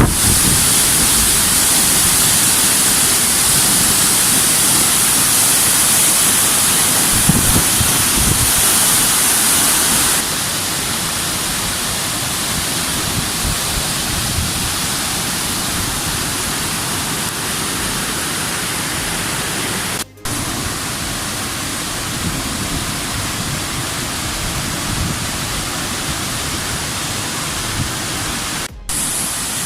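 Waterfall rushing: a loud, steady hiss of falling water. It drops a little in level about a third of the way through and cuts out for an instant twice, about two-thirds through and just before the end.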